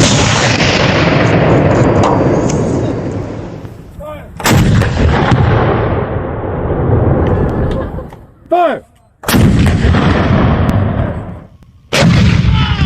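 German 8.8 cm Flak 36 anti-aircraft gun firing four heavy shots, about four to five seconds apart. Each shot is a sudden blast followed by a long rolling echo that dies away over several seconds.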